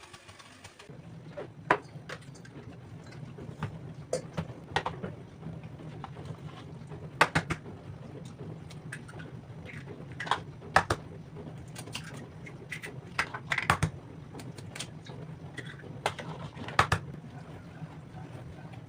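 Scattered light clicks and knocks of kitchen utensils and dishes being handled, over a steady low hum that starts about a second in.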